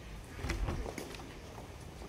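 A few light clicks and knocks, clustered around the middle, over a steady low background hum.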